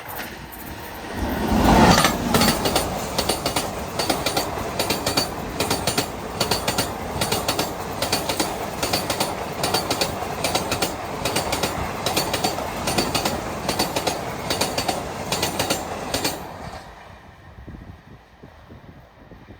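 Passenger express train passing at speed: the sound swells to a loud rush as the locomotive goes by about two seconds in, then the coaches' wheels clatter rhythmically over the rail joints. The clatter stops abruptly after about sixteen seconds, as the last coach passes, and the sound dies away.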